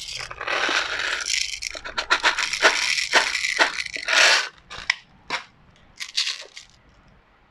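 Airsoft BBs rattling in a clear plastic bottle as they are shaken and poured out, a continuous rattle that stops about four and a half seconds in, followed by a few separate clicks of BBs and magazine being handled.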